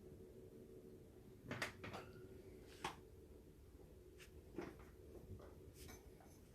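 Near silence: a faint steady room hum with a few scattered soft taps and knocks, about five in all.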